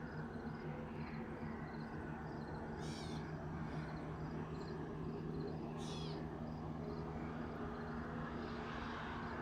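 Bird calls repeating about every three seconds, with short faint chirps in between, over a steady low hum.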